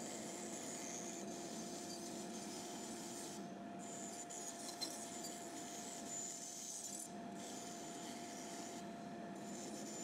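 Bandsaw running with its blade cutting a curved handle shape out of a softwood block: a steady hiss with a thin steady hum underneath.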